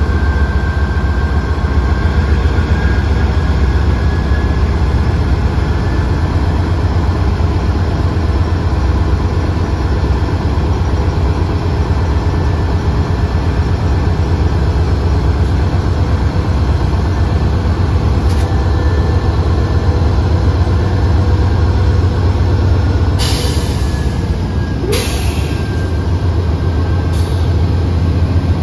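Intermodal freight train rolling past: a loud, steady, low rumble of cars and wheels on the rails. A few short sharp bursts of noise cut in during the last five seconds.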